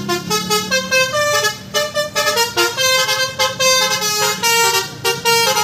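A multi-tone musical horn playing a fast melody of shifting notes over a steady low drone.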